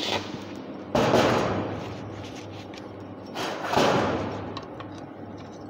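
The crackle of a stick-welding arc stops right at the start. Then come two loud, harsh metal-on-metal clatters, about a second in and again at about three and a half seconds, each fading over about a second, as welding tools are handled on the steel-topped bench.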